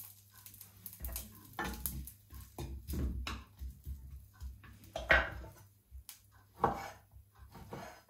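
Kitchen utensils and cookware being handled: irregular clinks and knocks, the loudest about five seconds in and again near seven seconds.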